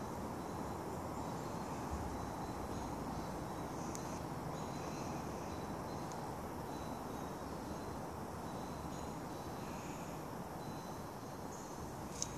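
Steady outdoor background noise, with a few faint, high-pitched chirps now and then.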